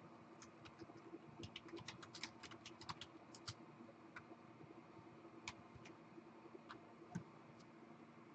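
Faint typing on a computer keyboard: a quick run of keystrokes in the first few seconds, then scattered single taps, over a low steady hum.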